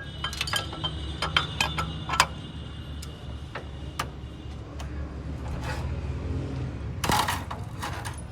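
Sharp metallic clinks and taps, several in the first couple of seconds with a brief high ringing, and a louder clatter about seven seconds in, over a steady low hum.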